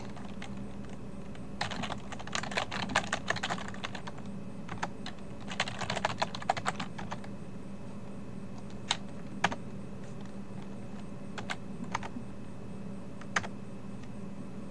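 Typing on a computer keyboard: two quick runs of keystrokes in the first seven seconds, then a handful of single key presses spaced a second or two apart.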